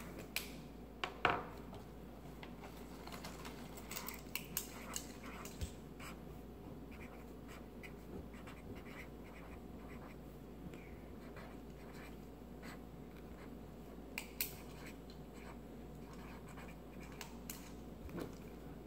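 Felt-tip marker writing on notebook paper, faint, with a few louder taps and clicks now and then.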